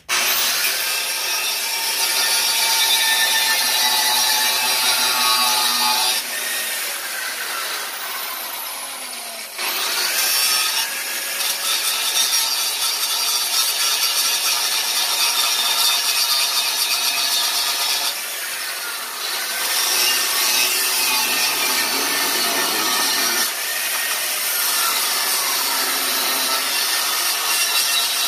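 Angle grinder cutting through the steel bolts that hold a snowblower's engine to its frame: a loud, steady, high-pitched grinding hiss. It eases off the cut for a few seconds about six seconds in and briefly around eighteen seconds, then bites back in.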